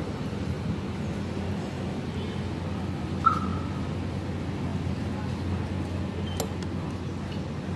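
A metal spoon clinks once against a ceramic soup bowl about three seconds in, with a few fainter clicks later, over a steady low background rumble.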